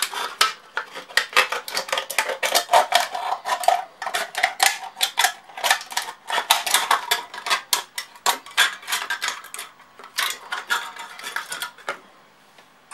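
Scissors cutting around a thin aluminium drinks can to cut it down short: a quick, dense run of snips with the thin metal crinkling. It stops about a second before the end.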